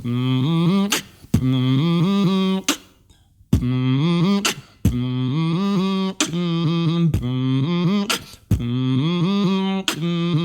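A man's voice humming a melody in long, sliding notes, broken up by beatboxed kick and snare hits made with the mouth.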